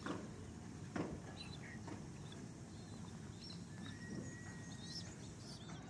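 Faint, scattered taps of pigeons pecking grain off a concrete floor, with a few faint high bird chirps.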